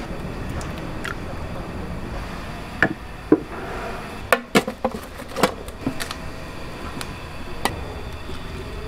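Scattered sharp clinks and knocks of stainless-steel bowls and a ladle over a steady kitchen hum, most of them bunched together in the middle.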